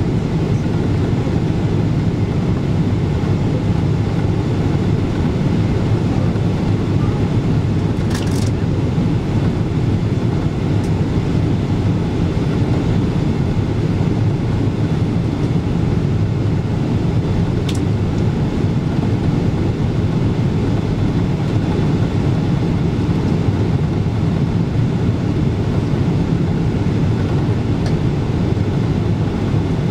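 Steady cabin rumble of a Boeing 777-200ER airliner on approach through cloud: engine and airflow noise heard from inside the passenger cabin. A few faint clicks come about a third of the way in, around the middle, and near the end.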